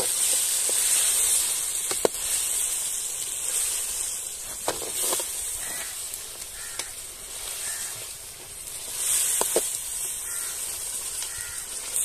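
Meat frying and sizzling in a steel karahi over a wood fire, stirred with a slotted metal spatula that knocks against the pan now and then.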